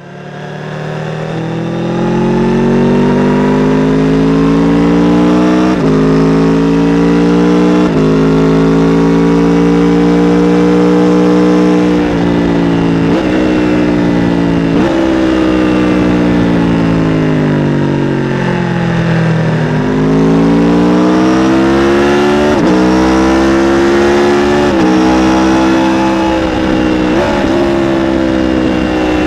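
Aprilia RSV4 RR's V4 engine on its stock exhaust, accelerating through the gears. The pitch climbs and drops sharply at each upshift, four times, then sinks slowly as the bike slows, and climbs again through four more shifts.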